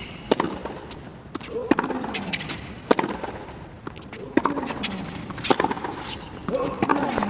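Tennis rally: racket strikes on the ball, a sharp hit about every second and a half as the ball goes back and forth across the court.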